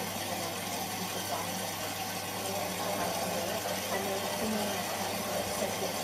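Whirlpool washing machine running its wash cycle with a steady hum.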